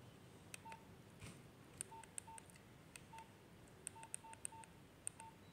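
Nokia 1600 keypad tones: about eight short, faint, single-pitch beeps at an uneven pace as the keys are pressed to scroll the menu, each with a light click of the plastic key.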